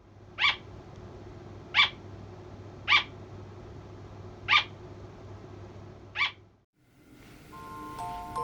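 Pet slow loris calling: five short, sharp high calls spaced about one to one and a half seconds apart.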